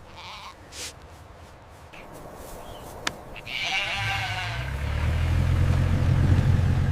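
A lamb bleats once, faintly, about halfway through. Then a low steady rumble comes in and grows to be the loudest sound.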